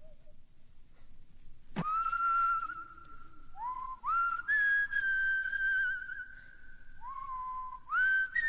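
A whistle-like melody: after a quiet start, a single tone swoops steeply up about two seconds in and holds, then several more notes each slide up into long, wavering held tones.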